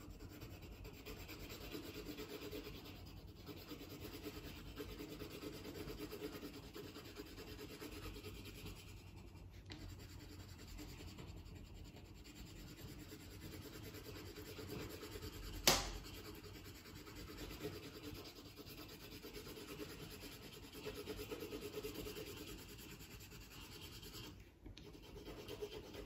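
Light yellow colored pencil scratching and rubbing across paper in light strokes, layered over other colors to blend them. One sharp click about sixteen seconds in.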